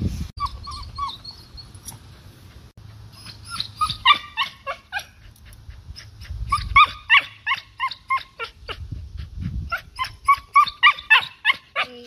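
Cocker spaniel whining and yipping in several runs of short, high cries, a few a second.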